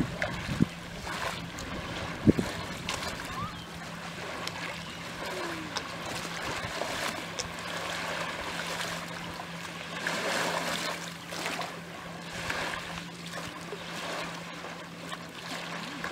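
Small waves lapping and trickling at a lakeshore wall, with scattered light splashes and a steady low hum underneath.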